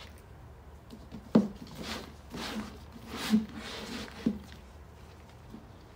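Upturned cups being set down and slid across a smooth floor: a few dull knocks with scraping slides between them.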